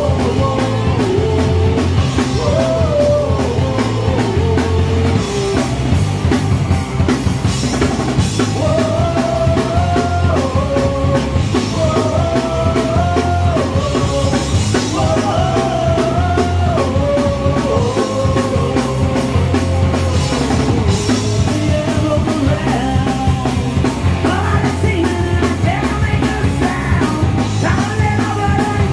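Live rock band playing at full volume: electric guitars and a drum kit with a heavy bass line, and a melody moving in steps above them.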